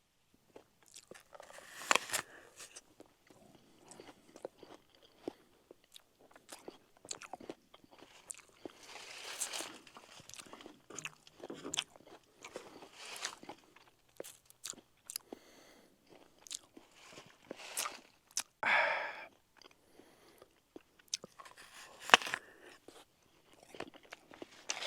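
A person biting into and chewing a crisp apple close to the microphone, with irregular crunches throughout.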